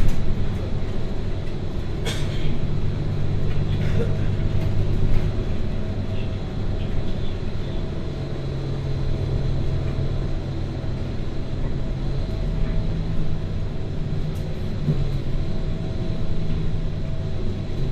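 Bus engine running and tyre and road noise, heard from inside the moving bus as a steady low hum, with a single knock about two seconds in.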